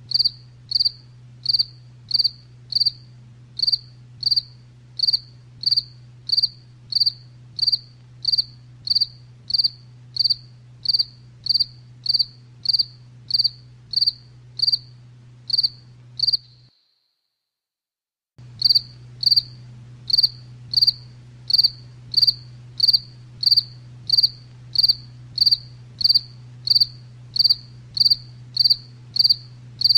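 Cricket chirping in a steady, even rhythm of short high chirps, about one and a half a second, over a steady low hum. The sound cuts out to dead silence for about two seconds just past the middle, then the chirping resumes at the same pace.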